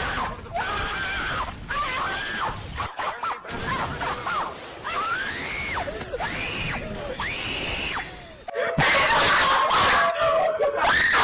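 A high-pitched voice wailing in a series of short cries that rise and fall in pitch. About three-quarters of the way through it breaks into a louder, harsher screaming noise.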